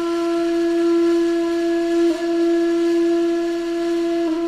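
A woodwind-like instrument holding long notes on one steady pitch, the trending sound said to remind cats of how they were worshipped in ancient Egypt. The tone breaks off briefly about two seconds in and again near the end.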